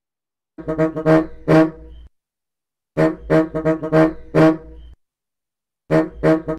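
Bus horn honking in three bursts of quick short blasts, each blast at one steady pitch: the 'pam pam' of a Maharashtra State Transport (ST) bus horn.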